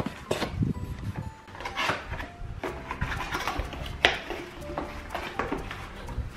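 Cardboard box being handled and pulled open by hand: irregular rustling, scraping and flapping of cardboard and packing paper, with one sharp snap about four seconds in.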